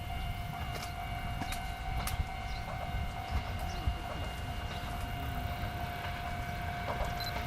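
Railway level-crossing alarm sounding steadily as a train approaches. A train's low rumble grows louder in the last second or two.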